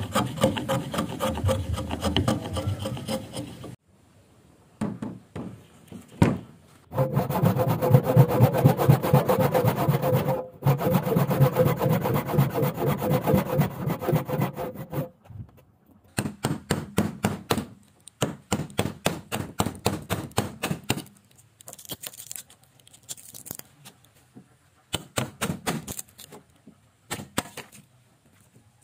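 Hand saw cutting a wooden beam in fast back-and-forth strokes. The strokes come in runs broken by short pauses, the longest lasting about eight seconds in the middle. Toward the end there are only scattered light taps and scrapes of wood.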